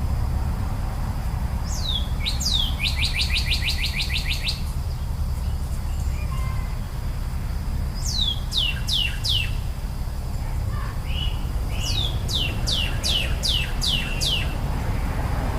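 A songbird singing in phrases of quick, high, falling notes: a fast trill near the start, then two runs of four to eight falling whistles later on. Under it runs a steady low rumble.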